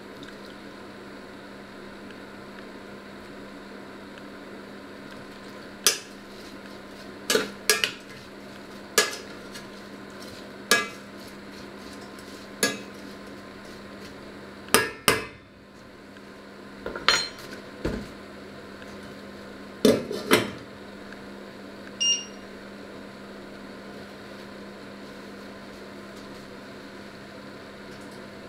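A metal spoon knocking and scraping against a small stainless steel saucepan while stirring, a dozen or so sharp clinks in irregular groups through the middle of the stretch, the last one ringing briefly as the lid goes on. A steady hum runs underneath.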